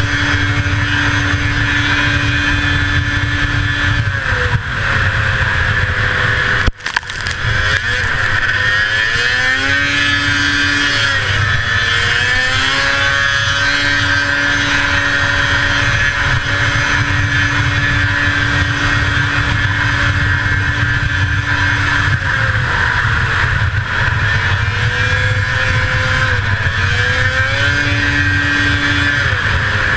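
The 1981 Arctic Cat El Tigre 6000's 500cc two-stroke engine running hard at race speed under a steady rush of wind and snow. Its pitch falls and climbs back twice, about a third of the way in and again near the end. A sudden brief cut in the sound comes about seven seconds in.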